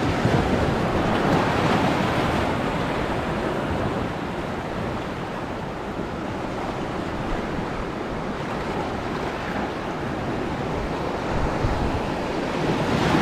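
Sea surf washing over shore rocks as the tide comes in: a steady rush of water that swells about a second in and again near the end.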